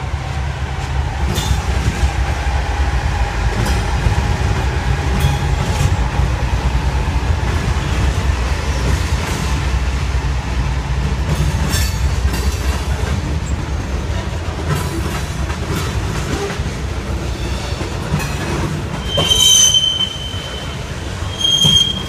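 Freight train passing, led by BNSF GE B40-8W diesel locomotives: a steady heavy low rumble of engines and rolling wheels with scattered clicks of wheels over rail joints as the cars go by. Two short high-pitched wheel squeals sound near the end.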